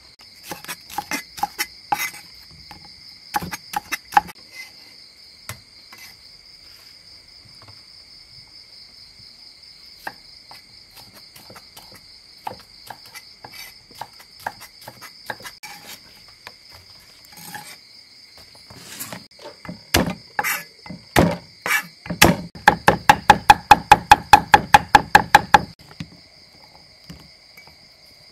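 Cleaver chopping on a wooden cutting board: scattered single chops, then a fast, even run of about six chops a second near the end, the loudest part. Crickets chirp steadily in the background.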